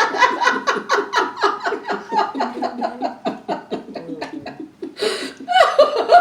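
People laughing hard in quick, repeated bursts that die away after about four and a half seconds, then a breath and laughter starting up again near the end.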